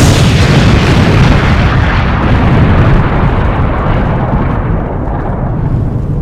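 Explosion sound effect: a big blast that cuts in suddenly, then a long, heavy rumble that slowly dies away.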